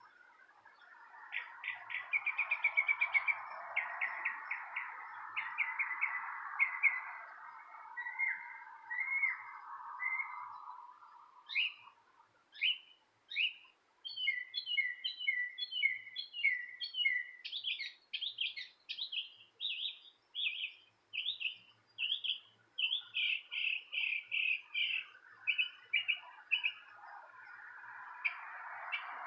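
Songbirds chirping: scattered short chirps at first, then a long run of quick, high chirps. A rushing noise swells under the birds for the first ten seconds or so and builds again near the end.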